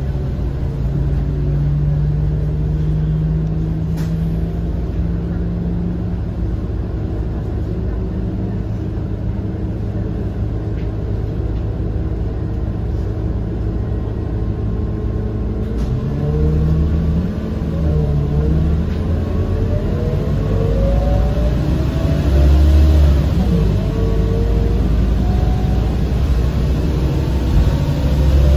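Scania K230UB city bus's nine-litre five-cylinder diesel engine running under way. Steady at first, then in the second half its pitch rises several times as the bus picks up speed.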